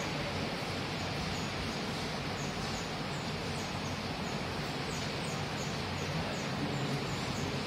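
Steady background noise with a low hum, with faint high chirps repeating from about two and a half seconds in.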